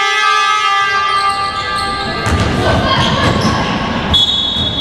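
A basketball is dribbled on a hardwood gym floor, thumping repeatedly from about two seconds in. Near the end a referee's whistle blows once, for about a second, at a steady high pitch. A steady horn-like tone dies away in the first second or so.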